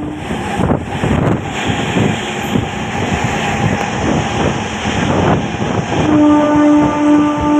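Running noise of a moving train heard through an open window, with wind on the microphone. About six seconds in, a steady pitched tone with a pulsing level starts up over it.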